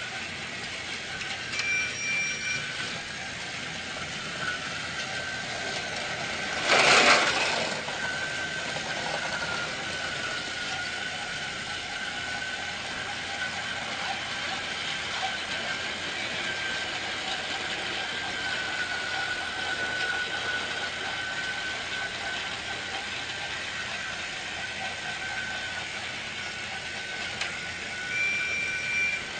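Small electric motor of a battery-powered toy train whirring steadily, its pitch wavering slightly. A brief loud noisy burst comes about seven seconds in, and short high beeps sound near the start and again near the end.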